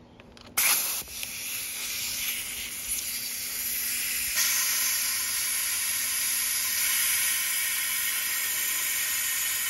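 Compressed air hissing steadily through a venturi coolant vacuum refill tool, drawing a vacuum on the engine's cooling system before the new coolant is pulled in. The hiss starts suddenly about half a second in and grows fuller about four seconds in.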